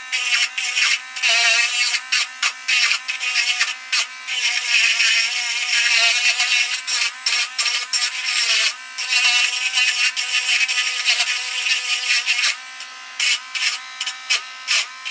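Small electric rotary tool, a Dremel-type grinder, running steadily with a high whine while its bit grinds corrosion off the coil-wire connection of an aluminium antenna trap. The grinding noise comes and goes in many short touches as the bit meets the metal.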